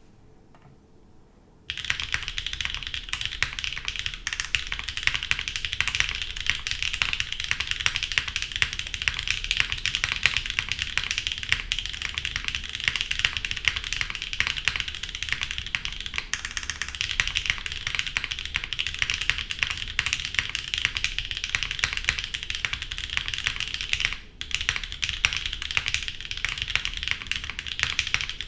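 Fast, continuous typing on a gasket-mounted Wilba Tech Salvation mechanical keyboard with an aluminium plate, NK Cream linear switches and GMK Dracula keycaps: a dense, unbroken stream of key clacks. The typing starts about two seconds in and breaks off for a moment near the end.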